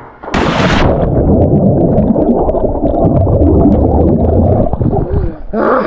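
A splash, then loud, muffled rumbling and gurgling as heard with the microphone under water, ending with another splash near the end as it comes back out.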